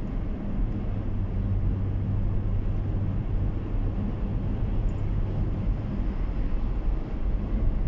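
Car cruising at steady highway speed, heard from inside the cabin: a constant low engine hum over even tyre and road rumble.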